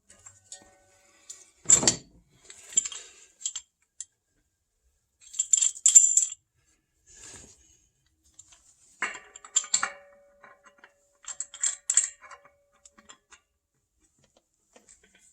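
Metal pipe fittings (nipple, 90° elbow and ball valve) clinking and scraping as they are handled and threaded together, in several short bursts with one louder clank about two seconds in and a brief ringing note near ten seconds.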